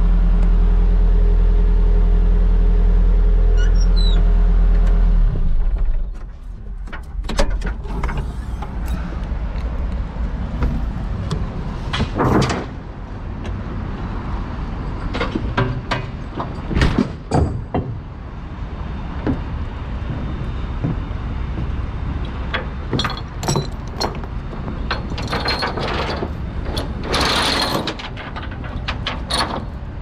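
A motor vehicle engine running steadily, which stops abruptly about five seconds in, followed by a series of irregular knocks and clanks.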